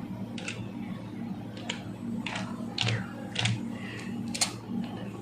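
Computer keyboard keystrokes, pressed one at a time at an uneven pace while a Windows product key is typed in, over a steady low hum.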